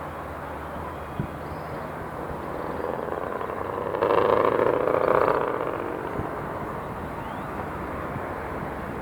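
City street traffic noise, with a motor vehicle passing close: it builds up, is loudest about four to five seconds in, and fades away.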